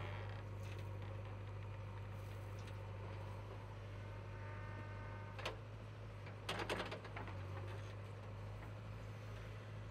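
JCB 3DX backhoe loader's diesel engine running with a steady low drone while it works, with a few sharp knocks about halfway through.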